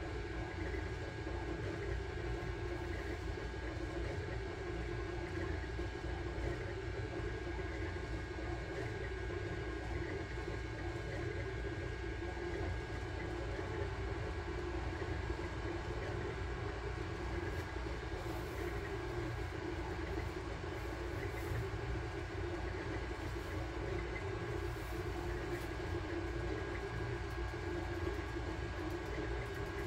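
Sunlu Terminator 3 FDM 3D printer running a print: a steady mechanical hum with a low rumble and a faint, constant high whine.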